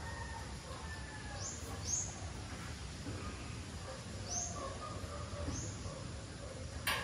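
Birds giving four short, high chirps spread over several seconds above steady outdoor background noise. There is a single sharp click near the end.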